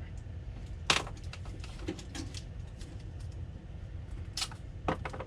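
Small handling clicks and rustles as wires are sorted and labelled, over a steady low hum. The loudest sharp click comes about a second in, and a few more come near the end.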